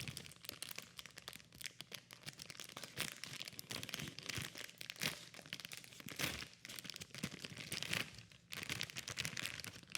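A plastic blind-box bag being torn open and handled: irregular crinkling and crackling, with a short pause about eight and a half seconds in.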